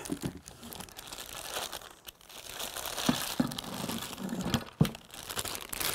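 Plastic wrapping bag crinkling and rustling as it is handled and pulled off by hand, with a few light knocks about three and five seconds in.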